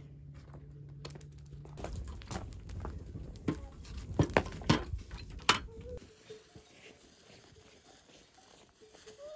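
Metal kettle being set onto a small wood fire in a stone hearth: a dense run of clicks, crackles and knocks, with a few sharp loud cracks a little past the middle. The sound stops suddenly about two-thirds of the way through and only faint background remains.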